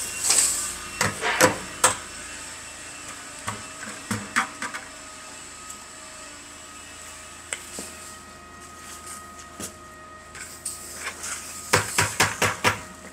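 Scattered metal clanks and knocks as steel machining chips are dumped from containers into a scrap bin, over a steady background hum. The clanks come in clusters near the start, around the middle and near the end.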